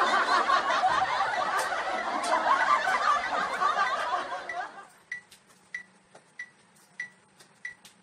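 A dense clamour like many people laughing that cuts off suddenly about five seconds in. Then five short high electronic beeps, evenly spaced about two-thirds of a second apart, like a workout timer counting down.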